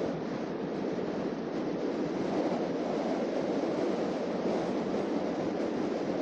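Steady road noise of a car driving: an even rush of tyres on pavement and wind, with no distinct events.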